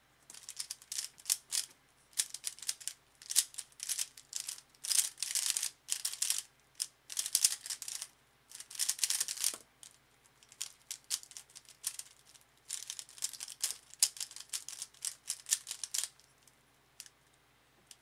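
A DaYan ZhanChi 55mm 3x3 speedcube being turned very fast during a timed speedsolve: rapid bursts of plastic clicking and clacking with brief pauses between them. The solve ends a little before ten seconds in. After a short gap, more quick bursts of turning follow for about six seconds as the cube is scrambled again, then a single click near the end.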